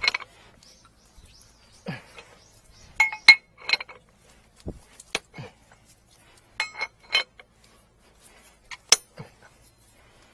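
Metal tools and pipe fittings clinking: a dozen or so sharp metallic clinks at irregular intervals as fittings on a fire-fighting water line are worked by hand, with a dull thud near the middle.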